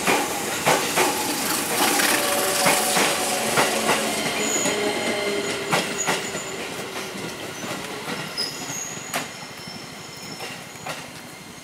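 A train running along the station track, its wheels clacking over rail joints, with several short high-pitched wheel squeals. It grows steadily fainter over the second half as it moves away.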